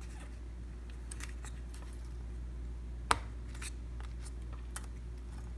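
Faint scattered clicks of a flex cable being handled and pressed into its connector on a MacBook Pro logic board, with one sharper click about three seconds in, over a steady low hum.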